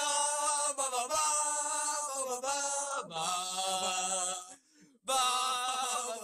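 Men singing loudly in long held, wavering notes, breaking off briefly a little before five seconds in.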